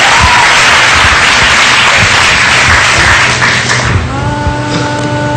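Studio audience applauding. About four seconds in the applause fades and a held chord of background music comes in.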